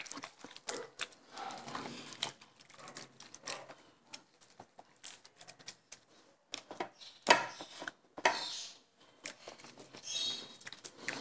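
Hands squishing and kneading raw chicken pieces in a wet marinade in a bowl: irregular soft wet squelches and small clicks, with a sharper knock about seven seconds in.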